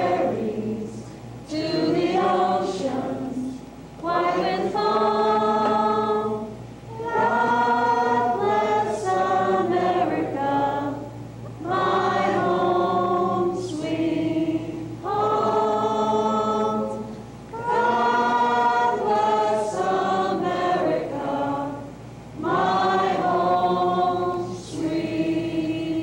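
A group of voices singing together in long-held phrases of about two seconds each, with short breaths between, over a steady hum.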